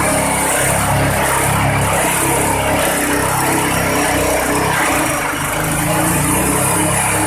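Engine-driven multipurpose shredder (grass, compost and straw chopper) running steadily, with a brief dip in level about five seconds in.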